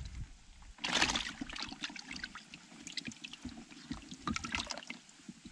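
Muddy water splashing and dribbling as small fish are lifted from a plastic bucket by hand and slipped into a shallow ditch: one louder splash about a second in, then scattered small drips and splashes.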